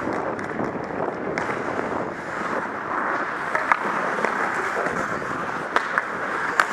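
Ice skates scraping and gliding on the ice, with air rushing over the skater-worn microphone, a steady rough noise. Several sharp clacks of hockey sticks on the puck and ice come in the second half.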